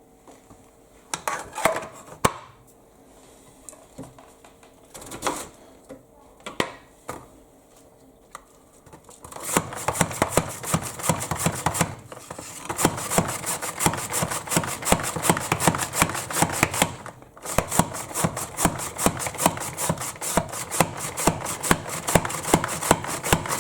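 Cabbage being chopped: a few separate knocks, then from about ten seconds in a fast, steady run of chopping strokes, broken by a short pause near the end.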